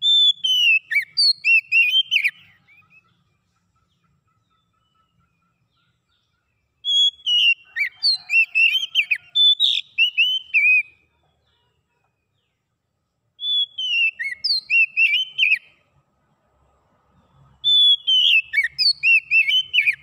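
Oriental magpie-robin (kacer) singing: four clear whistled phrases a few seconds apart, each opening with a falling whistle and running into quick warbled notes.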